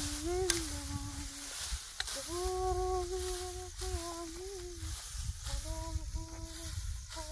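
A person humming a slow tune in several held, gently wavering phrases with short breaks between them, over a low rumbling background.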